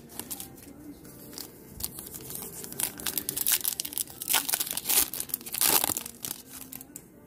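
Foil wrapper of a Topps Chrome trading-card pack crinkling and tearing as it is pulled open by hand, a run of sharp crackles that is loudest about five to six seconds in.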